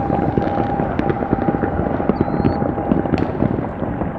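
Many fireworks and firecrackers going off at once around the neighbourhood, a dense, continuous crackle and popping over a low rumble of booms. A steady whistle-like tone holds for about three seconds before stopping.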